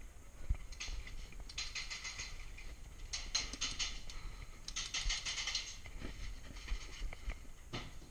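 Airsoft guns firing in short bursts of rapid clicks, four bursts about a second and a half apart, each lasting under a second, with a few single clicks between.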